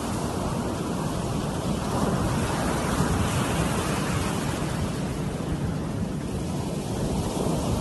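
Ocean surf washing onto a beach, a steady rush of waves mixed with wind.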